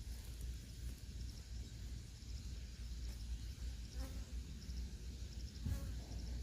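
Crickets chirping: short, high, pulsed chirps repeating about once a second, over a steady low rumble.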